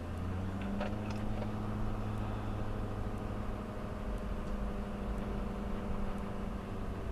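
A vehicle's engine running steadily while driving, a low even hum with no change in pitch, with a few faint ticks about a second in.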